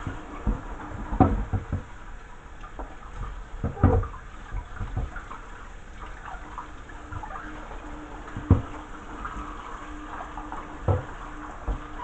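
Kitchen tap running into a stainless steel sink while a tumble dryer condenser unit is scrubbed and splashed under the stream. A few sharp knocks as the plastic unit bumps against the sink, the loudest about a second in, about four seconds in, and near the end.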